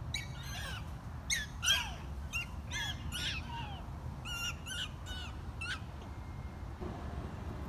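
Prairie dogs giving their 'wee-hoo' jump-yip calls in a chain reaction: many short, high, squeaky calls from several animals overlap, one setting off the next, then die away about six seconds in. A faint low rumble runs underneath.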